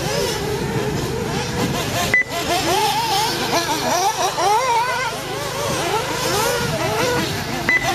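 Small engines of several radio-controlled off-road racing cars running on a dirt track. Their pitches overlap and keep rising and falling as the cars accelerate and back off. A sharp click with a short high beep comes about two seconds in, and another beep comes near the end.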